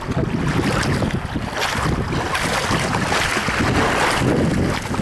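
Water rushing and splashing along a sea kayak's bow as it surfs a small wave, over a steady rumble of wind buffeting the microphone. The water wash swells about one and a half seconds in and eases near the end.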